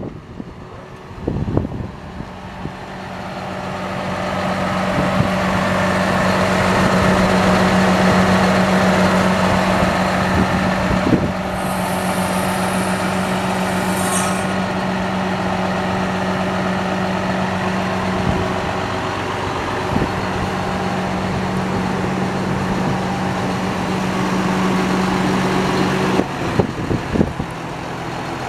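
John Deere 6190R tractor's six-cylinder diesel engine running at a steady, fairly high speed, growing louder over the first few seconds, then dropping to a lower speed near the end. A brief high hiss comes about halfway through.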